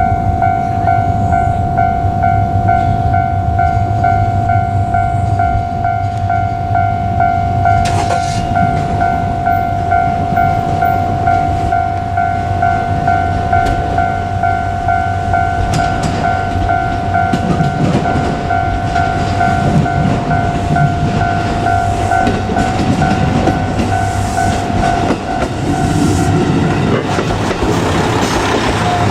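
Japanese level-crossing warning bell ringing in an even, repeating pulse, over the low rumble of an approaching JR Kyushu KiHa 200 diesel railcar. About 25 seconds in the bell stops and the railcar's wheel clatter over the rail joints takes over.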